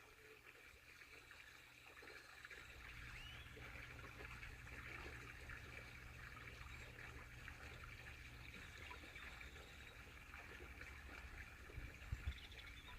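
Faint trickling water over a low hum, with a couple of soft thumps near the end.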